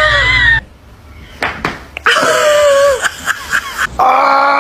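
Voices across quick cuts: a woman's high-pitched squeal that cuts off about half a second in, a short falling cry about two seconds in, then a man's long, steady yell starting near the end.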